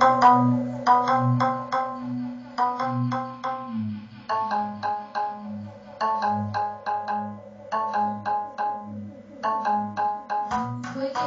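Music played through a car audio system hooked up to a PC: a quick, plucked, marimba-like melody in short runs over a pulsing bass line.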